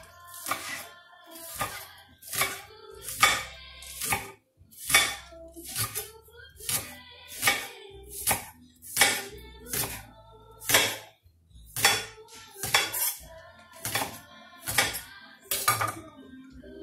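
Chef's knife chopping green onions on a marble board: sharp clacks of the blade hitting the stone, about one and a half a second, stopping near the end.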